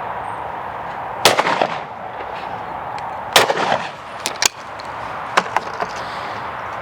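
Purdey Sporter shotgun firing two shots about two seconds apart, each with a short ringing tail, followed by a few sharp clicks.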